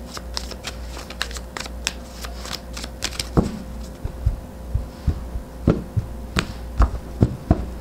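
A deck of tarot cards being shuffled by hand and cut into piles on a cloth-covered table: irregular soft riffling clicks and taps, with sharper snaps of the cards in the second half.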